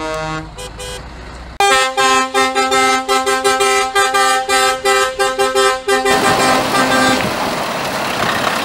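Truck air horns blasting a loud chord of several tones in a quick pulsing run, cutting off about six seconds in and giving way to the noise of a truck's engine and exhaust.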